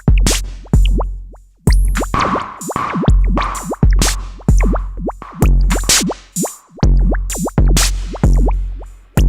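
Electronic drum-machine beat run through an Elektron Analog Heat MKII: a booming kick with a long low tail a little more than once a second, noisy hat and snare hits, and quick falling pitch blips between them.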